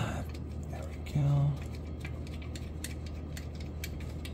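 Scattered light metallic clicks and ticks as bolts, the fuel injector removal tool and other parts are handled in an engine bay. A brief hummed tone comes about a second in, over a steady low hum.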